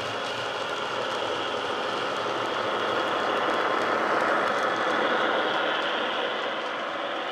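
Model HST's DCC sound decoder playing a Paxman VP185 diesel engine running, heard through the power car's small speaker together with the model running on the track. It grows louder as the power car passes about four seconds in, then eases off as it moves away.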